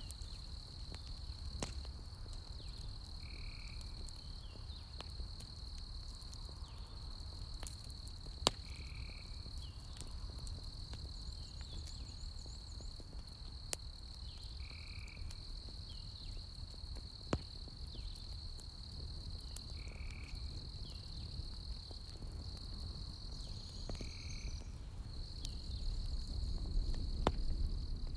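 Night campfire ambience: a steady high insect trill, with a short call repeating every four or five seconds. Under it run the low rumble and scattered sharp pops of burning logs, and the rumble grows louder near the end.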